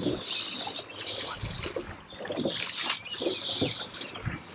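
Water swishing around a boat on a flowing river, in about four short bursts of hiss with faint knocks between them.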